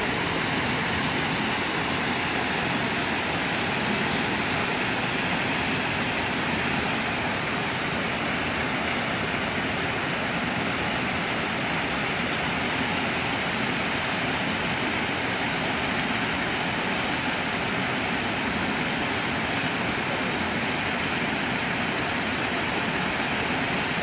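Small waterfall pouring over a granite rock face into a pool: a steady, even rush of water.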